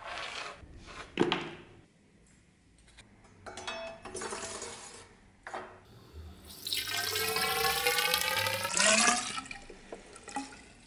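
Rust remover liquid poured from a bottle into a narrow steel tube holding a knife blade, the pour's pitch rising steadily as the tube fills. Before the pour there is a sharp knock about a second in, along with handling noise.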